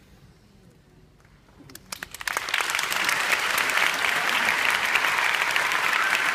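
A hushed hall at first, then an audience begins clapping about two seconds in: a few scattered claps that quickly swell into full, steady applause.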